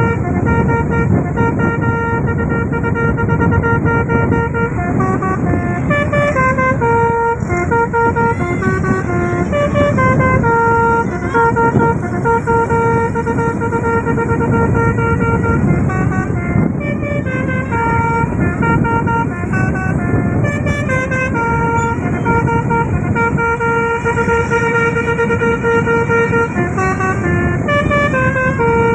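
Tour bus telolet horn in 'basuri' mode playing a melody of held notes that step up and down in pitch, over a steady low rumble.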